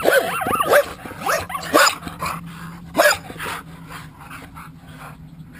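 Entlebucher mountain dogs vocalising in play-fighting: a tangle of whining yips and growls over the first two seconds, with sharp barks around two and three seconds in, then quieter.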